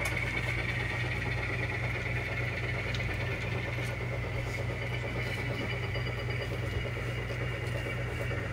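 Sound-equipped model diesel locomotive playing a steady, even diesel engine sound through its small onboard speaker as it switches cars at low speed.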